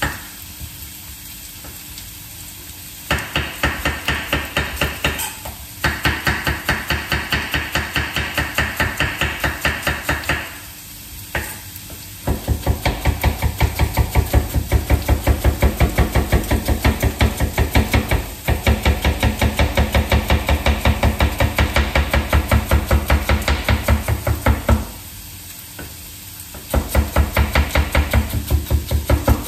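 Peeled potato cut into thin strips on a wooden cutting board, in quick rhythmic strokes of about three a second that knock against the board, in runs of several seconds with short pauses.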